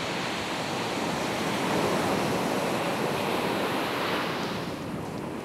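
Ocean surf breaking and washing up the sand, with wind blowing. The wash swells about two seconds in and drops off near the end.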